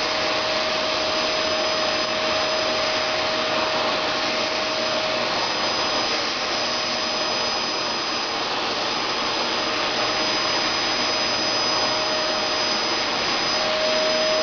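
Dyson Ball vacuum cleaner running steadily while being drawn over a cat's coat: an even rushing sound with a whine on top that fades about five seconds in and comes back near the end.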